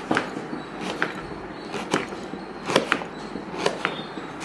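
A kitchen knife cutting pumpkin pieces against a plate, giving sharp irregular taps roughly once a second.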